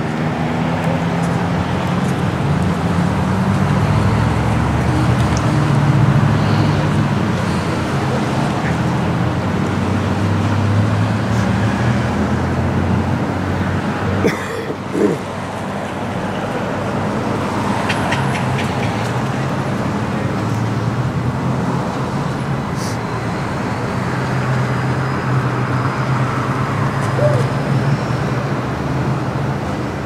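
Steady low engine rumble of road traffic, with a short knock about fifteen seconds in.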